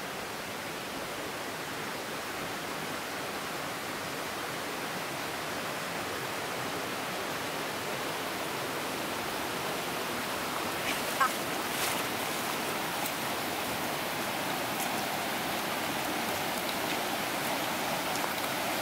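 Steady rush of a shallow creek flowing over rocks, with a few brief knocks about eleven to thirteen seconds in.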